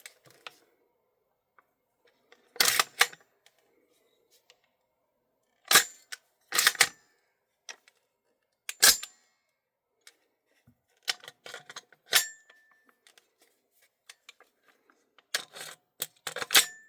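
Sharp metallic clicks and clacks from the ambidextrous controls of a Double Eagle 'Ghetto Blaster' airsoft gas blowback rifle being worked by hand. There are about eight separate clacks at uneven gaps, some in quick pairs. A few leave a brief ringing tone.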